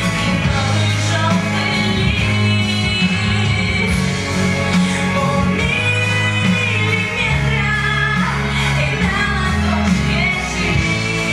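A pop-rock song with singing over guitar and a steady bass line.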